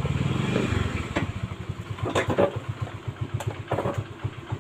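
A small engine running with a fast, even pulse, with a few short louder sounds in the middle.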